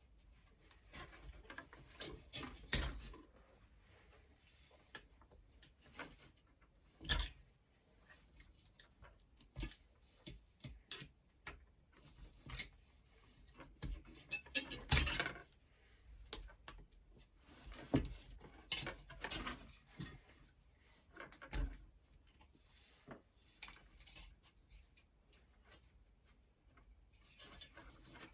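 Irregular metallic clinks, clicks and knocks of tools and small steel parts being handled while a bicycle hub assembly is taken apart, with quiet gaps between them. The loudest knock comes about halfway through.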